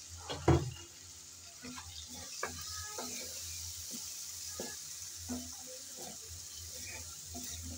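Shrimp in a thick, cooked-down spice paste sizzling in a metal pan while a spatula stirs and scrapes it, with scattered light knocks and a sharper knock about half a second in.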